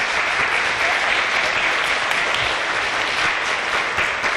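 An audience of schoolchildren applauding: a steady, dense round of clapping.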